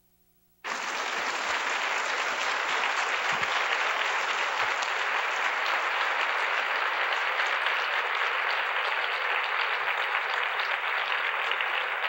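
Audience applauding steadily. The applause starts abruptly about a second in, after a faint hum.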